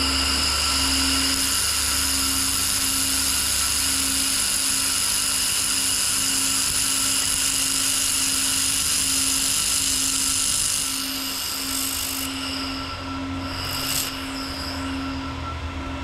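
Everlast Red Sabre 1500 air-cooled handheld laser welder running a bead on 18 gauge stainless steel with filler wire at 700 watts: a loud steady high-pitched whine over a hiss, which stops about eleven seconds in. The unit's cooling hum carries on under it, and a short click comes near the end.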